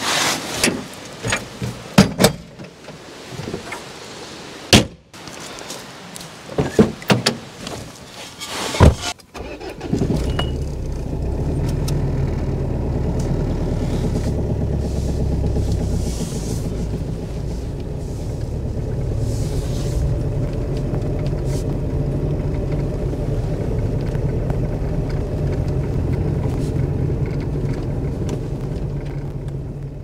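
Several sharp knocks and bangs from gear being handled and loaded. Then, about ten seconds in, a car engine starts and runs steadily at a low idle.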